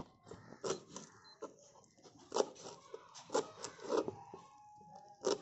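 Large kitchen knife chopping fresh coriander leaves on a board, with quick irregular strokes about two to three a second.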